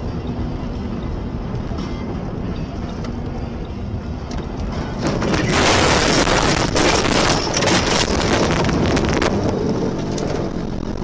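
Car running along a road with steady cabin noise. About five seconds in, a sudden loud crash begins, a rushing noise full of knocks and crackles from the car leaving the road. It lasts about four seconds, then eases off.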